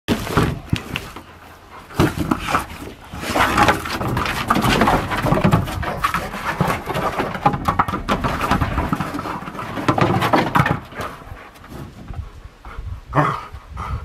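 Dogs playing with a large orange ball on a wooden deck. An irregular run of knocks, thumps and scrapes as the ball is pushed and bumped about, mixed with the dogs' own noises.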